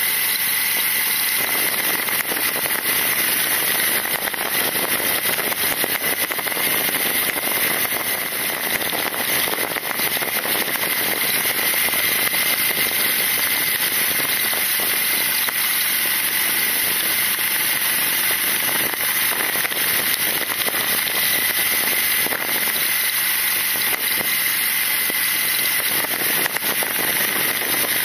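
BMW R nineT's 1170 cc boxer twin running steadily at road speed, largely buried under wind rushing over the motorcycle-mounted camera's microphone.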